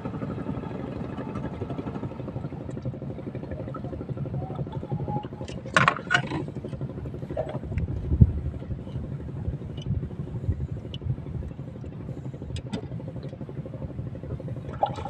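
A small engine running steadily, with a few sharp clicks and knocks over it, the loudest about six seconds in.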